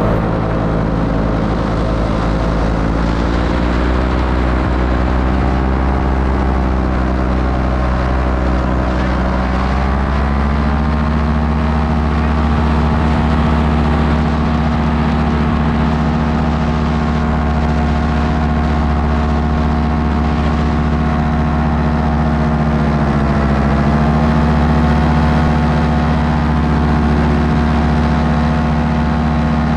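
Paramotor engine and propeller running steadily in flight, heard close up from the pilot's harness. The engine note sags and then climbs to a higher, steady pitch about ten seconds in, and dips and rises again in the last few seconds.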